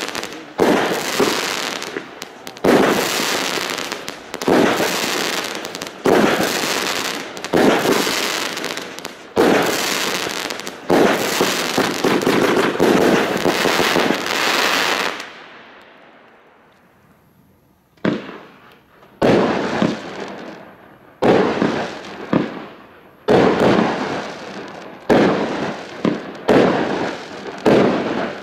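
Argento Iris, a 36-shot 25 mm fireworks cake, firing shot after shot: each a bang that trails off over about a second and a half. After a lull of a couple of seconds midway, it fires faster, about one shot a second.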